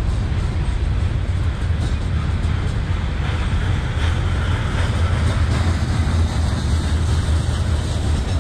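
Freight train cars, tank cars and covered hoppers, rolling past: a steady rumble of steel wheels on the rails, heaviest in the low end.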